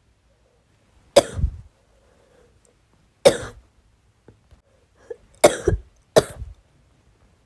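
A woman coughing from bronchitis: four single coughs, the first two about two seconds apart and the last two less than a second apart.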